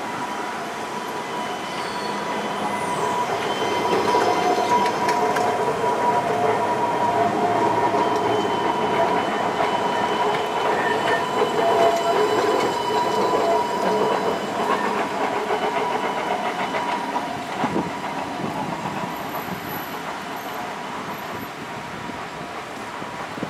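Alstom Citadis 305 light-rail tram running past on its track, with a steady whine from its electric drive over the rumble of wheels on rail. It grows louder as it nears, then fades as it moves away. There is a single sharp knock about three quarters of the way through.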